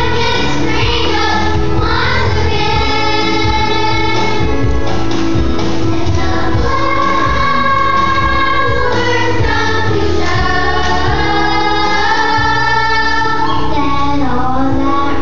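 A group of children singing a song together in long held notes, over an instrumental accompaniment.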